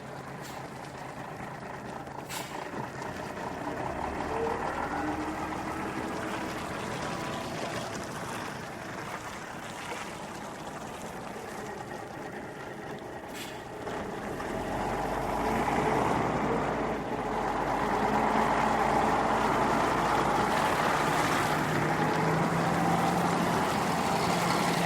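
Bus engine running as the bus moves, with two short sharp clicks about two seconds in and again near the middle. About fifteen seconds in the engine pulls louder and stays loud.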